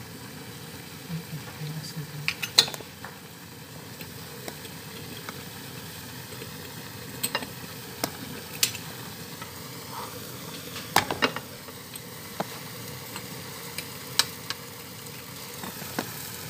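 Seafood sizzling in a hot pan while a utensil stirs it, with a sharp click or scrape against the pan every second or two.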